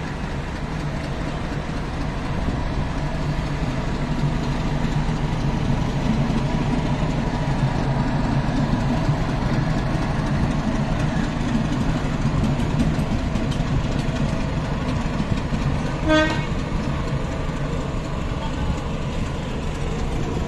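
WDS-6 diesel shunting locomotive's ALCO 251 diesel engine running steadily as the locomotive moves past, a low drone that grows louder a couple of seconds in. A single short horn toot sounds about three-quarters of the way through.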